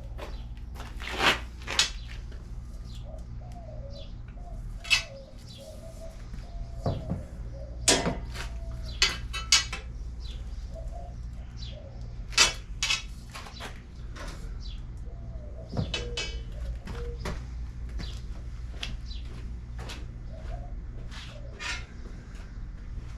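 Sharp metal clanks and knocks every second or two from hand work on steel tubing, over a steady low hum. A bird coos faintly and wavers in the background.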